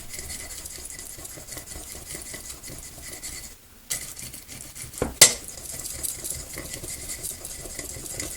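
Decorative transfer foil being rubbed and burnished down onto glue: a dense run of light scratching and crinkling, with a short pause midway and a single sharp click a little after five seconds in.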